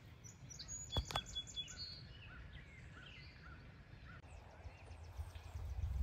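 Small birds chirping in a series of short repeated notes, over a steady low rumble; two sharp clicks about a second in.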